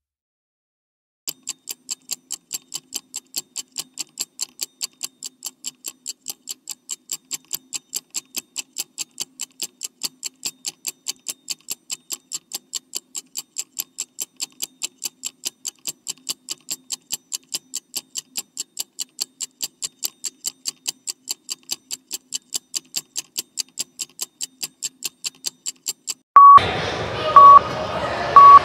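Countdown timer sound effect: a steady, fast ticking, about four ticks a second. About 26 seconds in, loud gym sound cuts in under a short beep each second as the countdown reaches its last seconds.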